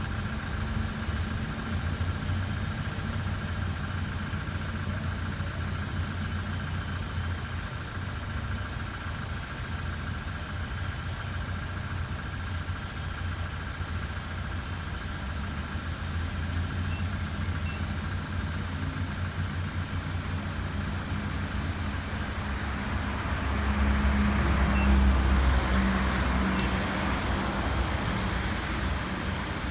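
A motor vehicle's engine idling with a steady low hum. About three-quarters of the way through, the rumble swells for a couple of seconds. Soon after, a steady hiss comes in suddenly.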